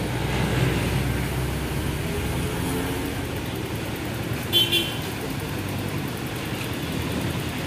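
Passing road traffic: engines of light trucks, cars and motorcycles with tyre noise, a steady rumble. About halfway through, a vehicle horn gives a quick high-pitched double beep.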